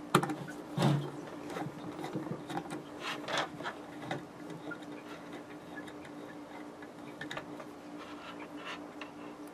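Scattered light clicks and taps of electrical wires and plastic plug connectors being handled, the strongest at the very start and about a second in, over a steady low hum.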